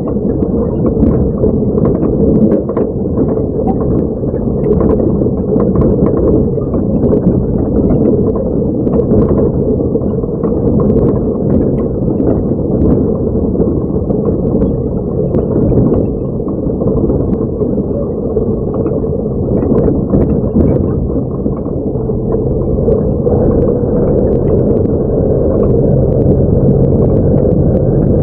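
Truck engine running, heard from inside the cab, with frequent rattles and knocks as the truck crawls over a rough dirt track. Near the end the engine hum becomes steadier and more even.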